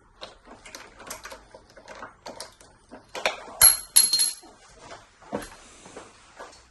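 Hand tap in a T-handle tap wrench cutting a thread into metal: a run of light ticks and creaks as it is turned. About three and a half seconds in come two sharp, ringing metal clinks.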